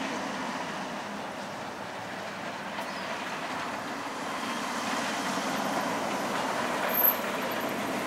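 Roller coaster train running along its steel track during a test run: a steady rushing rumble that slowly grows louder, with a brief sharp tick about seven seconds in.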